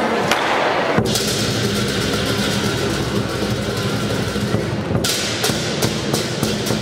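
Lion dance percussion: a large Chinese lion drum beaten together with clashing hand cymbals. The cymbals start crashing continuously about a second in, then break into separate strokes, several a second, near the end.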